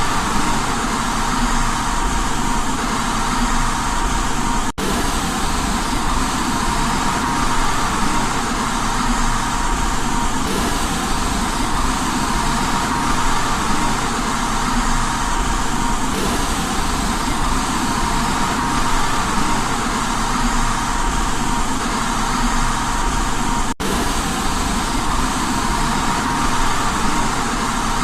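Steady white noise for baby sleep: a continuous, even hiss with a faint steady tone running through it. It drops out for an instant twice.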